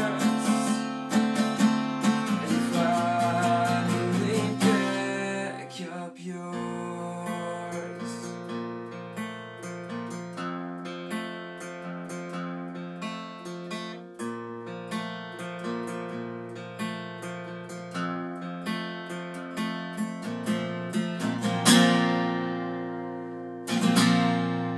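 Acoustic guitar with a capo, strummed hard for about five seconds, then picked more lightly in a steady pattern. It ends with two strong strums a couple of seconds apart, the last chord left ringing and fading.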